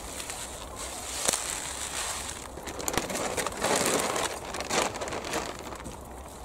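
White plastic sack crinkling and rustling as cut elephant garlic tops are pushed into it, with scattered crackles. It is loudest in the middle.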